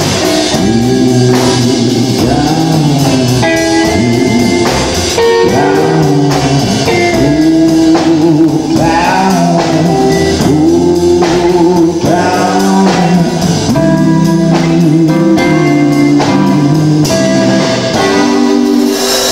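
Live rock and roll band playing electric guitar, electric bass and drum kit, with a lead line of repeated bending notes over a steady beat.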